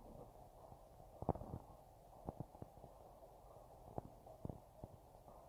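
Faint, distant steam locomotive working toward the listener: a low steady noise broken by soft, irregular thumps.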